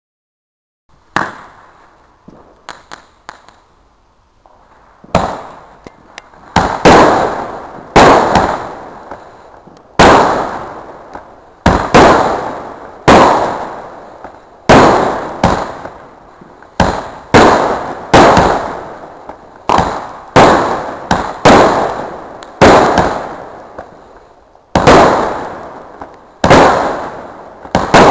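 Weco "Big Crackles" 20-shot firework battery firing. After a sharp pop and a few faint clicks, shots go off about once a second from about five seconds in, each a sharp bang trailed by a fading crackle.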